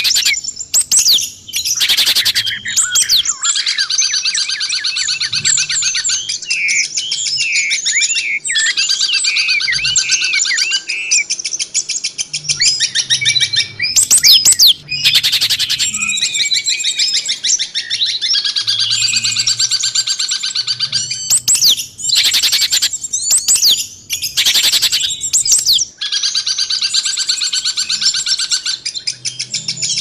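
Songbirds singing in a dense, almost unbroken stream of rapid chirps, trills and whistles, several songs overlapping. This is a compiled masteran recording, the kind played to caged songbirds so they learn new phrases.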